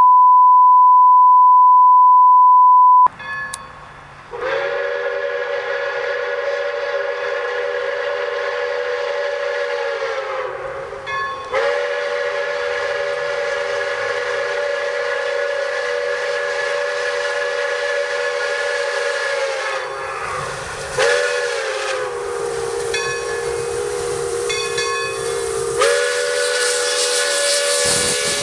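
A steady test-tone beep for about three seconds, then the steam whistle of Pere Marquette 1225, a steam locomotive, blowing three long blasts of several tones at once over a breathy hiss. Each blast sags in pitch as it tails off, and the last one starts lower and steps back up near the end.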